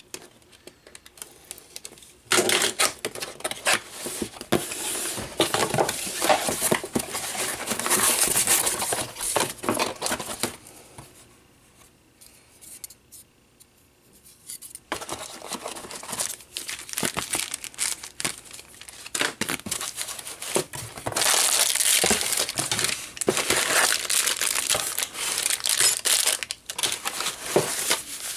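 Cardboard box and plastic packaging being handled and unwrapped: irregular rustling, crinkling and tearing with small clicks and knocks. There is a quieter pause about halfway through.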